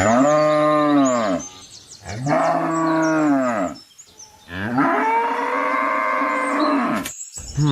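Cow mooing three times, long drawn-out calls that each rise and fall in pitch, the last one the longest.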